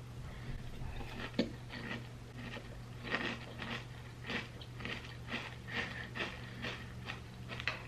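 Close-up crunching and chewing of a mouthful of cereal flakes, a quick run of crunches several times a second, over a faint steady low hum.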